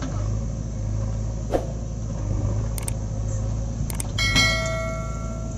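JCB 3DX backhoe loader's diesel engine running steadily. A few sharp mouse-style clicks come about halfway through, then a ringing bell chime for about a second near the end. These are the sound effects of a YouTube subscribe-button animation laid over the engine.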